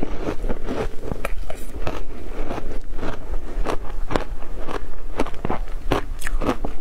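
Close-up crunching and chewing of a mouthful of matcha-powdered ice: a rapid, irregular run of sharp crunches.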